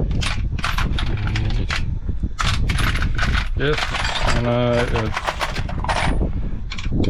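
Metal hand tools clattering and knocking as they are handled and rummaged through: a quick, irregular series of sharp clicks and knocks over a steady low rumble.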